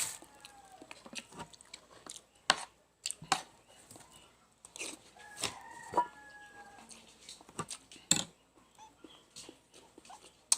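A rooster crows once midway, a drawn-out call of about a second and a half that falls slightly in pitch. Around it come scattered sharp clicks and smacks of someone eating chicken bones.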